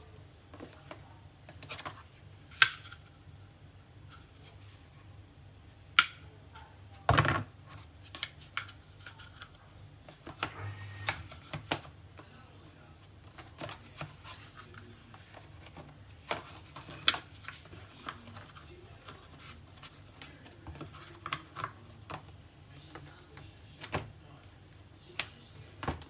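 Handling noise from a leather phone case and a cardboard box tray: scattered taps, clicks and light scraping as the case is fitted into its compartment, with a few sharper knocks.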